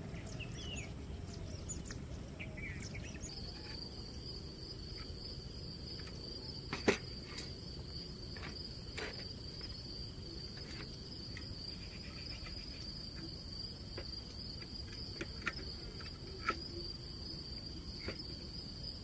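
Insects trilling: a steady high-pitched trill sets in about three seconds in and holds, over a low background rumble. A few short chirps come in the first few seconds, and occasional light clicks and knocks sound throughout, the sharpest about seven seconds in.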